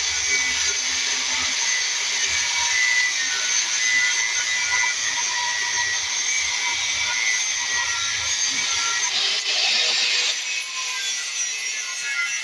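Angle grinder running with its abrasive disc grinding against a rusty steel tong handle, a steady high grinding hiss with a louder stretch about nine seconds in.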